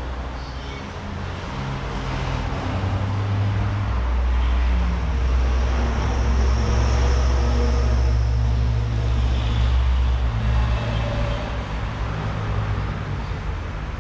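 Low engine drone of a heavy road vehicle close by on the street, swelling over the first few seconds, loudest mid-way, then easing off.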